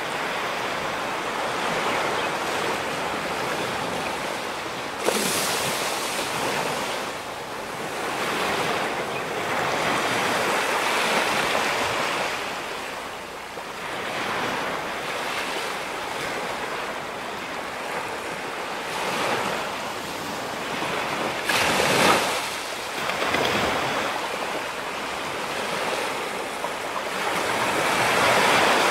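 Ocean surf breaking on a rocky shore: a continuous wash that swells and ebbs, with sharper crashes about five seconds in and again at about twenty-two seconds.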